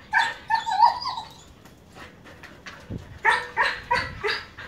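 Siberian husky giving a loud wavering whine-howl, then a quick run of about five short sharp barks about three seconds in; it is worked up and straining on its leash toward a cat at its food.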